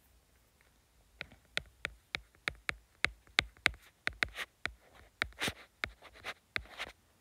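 A pen or stylus tip writing by hand on a hard surface: a quick run of sharp taps, roughly three a second, with a few short scratchy strokes among them.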